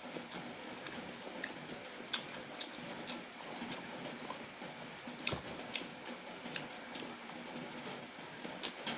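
Close-miked eating sounds of a person chewing soft noodles: wet squishy chewing and mouth smacking, with scattered short clicks, the sharpest about five seconds in.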